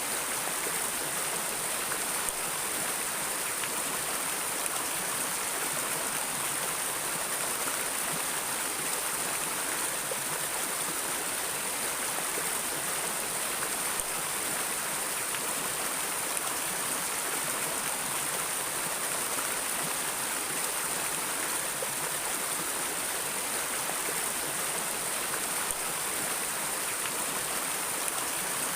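A stream or river flowing steadily over rocks, an even rushing and babbling that does not change.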